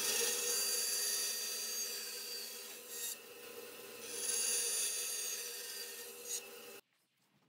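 Bandsaw cutting into a wooden block, the blade running with a steady hiss of the cut. The cut eases about three seconds in, picks up again a second later, and the sound cuts off suddenly near the end.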